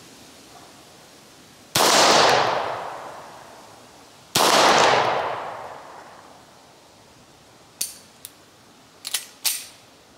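Two shots from a 9mm Beretta 92FS pistol about two and a half seconds apart, each ringing out in a long echo. A few small sharp clicks and knocks follow near the end.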